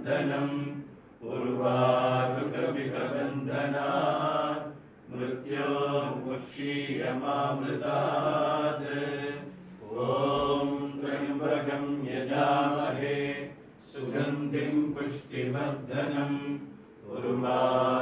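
A man's voice chanting Sanskrit mantras at a near-steady pitch, in phrases of a few seconds with short pauses for breath between them.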